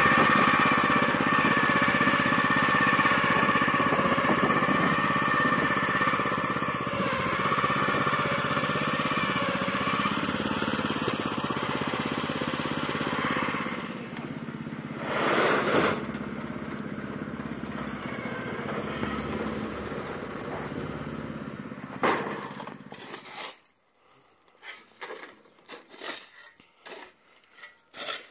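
A small petrol engine running steadily, somewhat quieter from about 14 seconds in, with a brief louder surge about a second later. It cuts off near the end, leaving a few light clicks and clatters.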